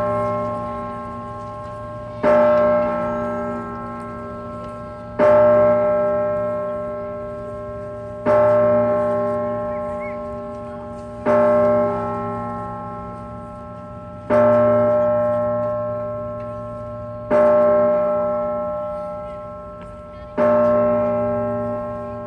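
Independence Hall's tower bell, the Centennial Bell, tolling noon: single strokes about three seconds apart, seven in all. Each one rings out with a rich cluster of tones and slowly dies away before the next.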